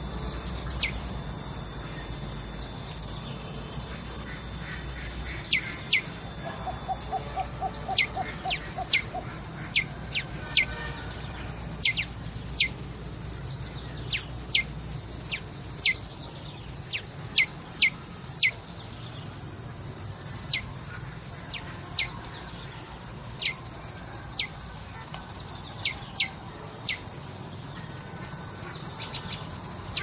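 A steady, high-pitched drone of insects, with short falling chirps from a bird about once a second, spaced unevenly. About seven seconds in there is a brief, quick series of lower notes.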